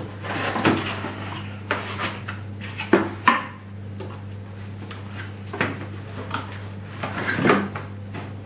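Cardboard packaging being handled and opened by hand: irregular scraping and rustling with a few sharp knocks, over a steady low hum.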